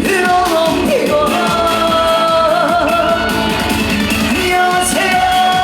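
Live Korean-language song: a vocalist sings a line and holds a long, wavering note over amplified band backing, heard in a large space.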